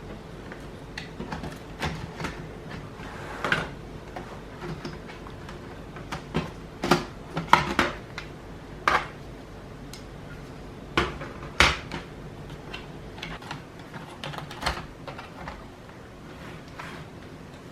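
Irregular clicks and taps of small tools and hard plastic parts being handled while an Acer Aspire E1-570 laptop is taken apart, with a few sharper knocks in the middle.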